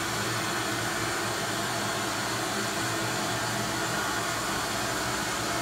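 Hydraulic lift power unit's pump motor running, a steady whir over a low hum.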